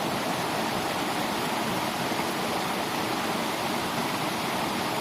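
Steady rush of water flowing through a rice-paddy channel, swollen by runoff after a storm.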